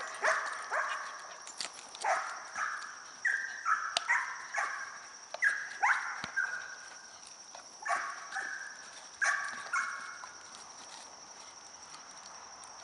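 Doberman barking repeatedly in short, sharp barks, coming thick at first, then thinning out and stopping about ten seconds in.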